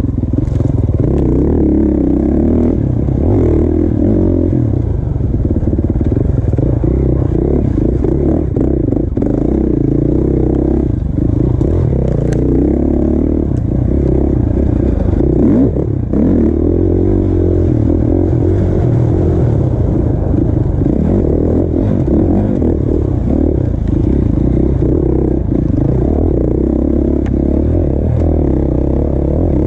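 A 450 four-stroke dirt bike engine running hard on a trail ride, its note rising and falling with the throttle, with knocks and clatter from the bike over rough ground.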